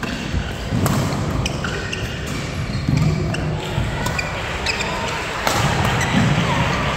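Badminton doubles rally: sharp racket strikes on the shuttlecock every second or so, with short squeaks of shoes on the court floor.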